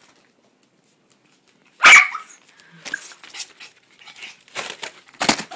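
Yorkshire terrier barking: quiet at first, then about two seconds in one loud sharp bark, followed by several shorter, quieter barks.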